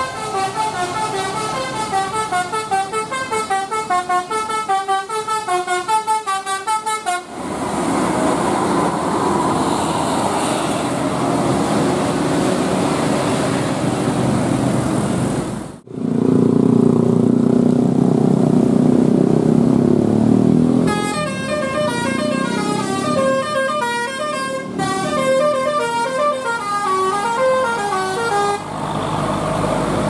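Tour bus telolet horns playing quick melodic tunes of short, fast-changing notes, for the first seven seconds or so and again about two-thirds of the way in. Between the tunes, bus engines and traffic run, with a sudden break about halfway and then a louder, low engine sound.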